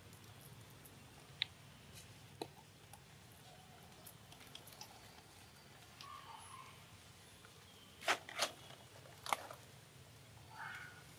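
Faint scuffing and small clicks of baby macaques moving and playing on stone, with three sharper clicks about eight to nine and a half seconds in and a couple of faint short squeaks.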